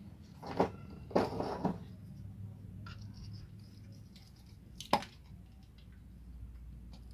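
Screwdriver prying at the distributor housing of a Suzuki Carry 1.0 engine to work it loose from its seat: a sharp metal click, a brief scrape about a second in, and another sharp click about five seconds in.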